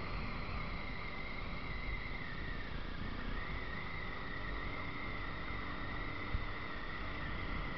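Yamaha Factor single-cylinder motorcycle riding along, its engine running steadily under wind and road noise. A steady high whine runs over it and dips briefly about three seconds in.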